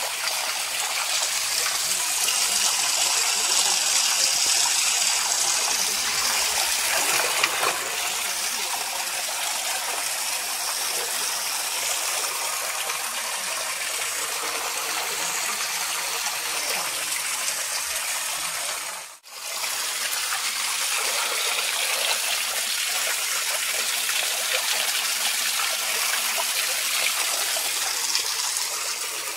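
Spring water pouring steadily through a carved stone spout, a continuous rushing splash. The sound cuts out for a moment about two-thirds of the way through.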